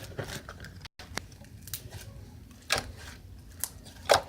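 Foam slime made with clear glue being squished and pulled by hand, giving irregular crackly pops and clicks, with two louder pops in the second half.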